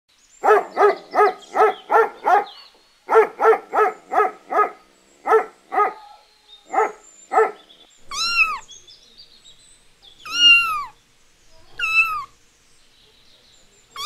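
Kittens meowing: three separate high meows, each rising then falling, in the second half. Before them comes a run of short, quick animal calls, about three a second, that trail off to a few scattered ones.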